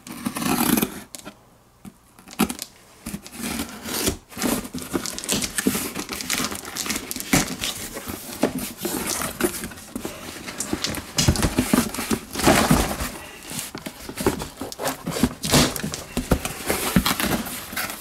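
A cardboard box being opened by hand, its packing material crinkling and tearing, with irregular scrapes and knocks throughout.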